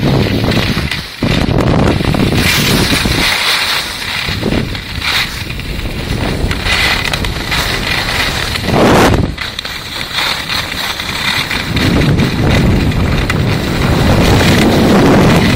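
Wind buffeting a phone's microphone during a downhill ski run, over the rushing scrape of skis on hard-packed, tracked piste snow. The noise surges and eases several times, loudest about nine seconds in.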